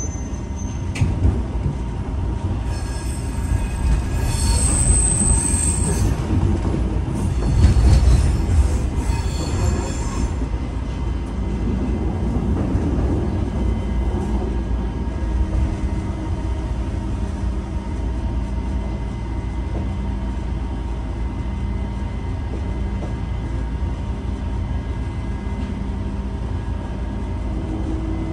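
ÖBB class 4020 electric multiple unit running along, heard from inside the passenger car: a steady rumble of wheels on track, with high-pitched wheel squeal about three seconds in and again about seven seconds in.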